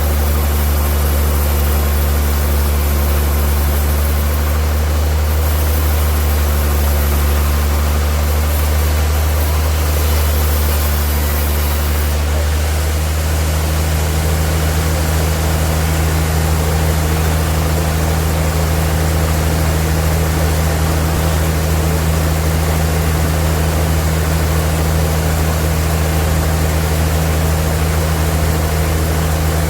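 Sawmill machinery running with a steady low hum. About halfway through, the hum's pitch shifts slightly and the high hiss changes.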